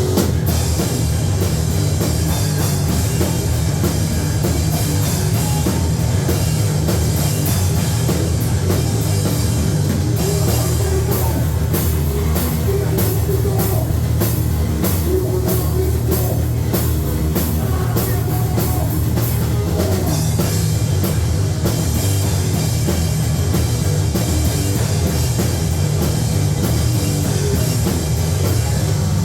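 Live heavy metal band playing loud: distorted guitar, heavy bass and pounding drum kit, with the drumming at its densest and fastest in the middle stretch.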